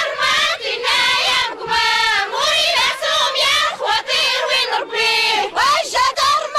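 A group of women singing together in high, wavering voices, a traditional Amazigh wedding song sung in short phrases.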